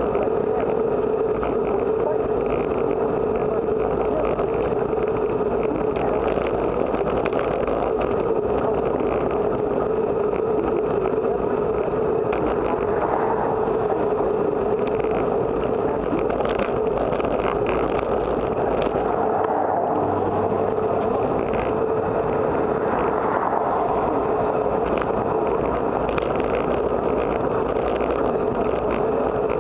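Steady wind rush and tyre noise from a bicycle riding on asphalt, picked up by a bike-mounted camera's microphone, with a constant drone at one pitch running through it.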